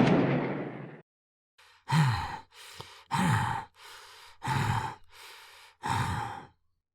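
A loud burst of noise fades out over about a second. It is followed by a man's heavy, voice-acted breathing: four loud sighing exhales, each starting with a short falling groan, alternating with quieter inhales.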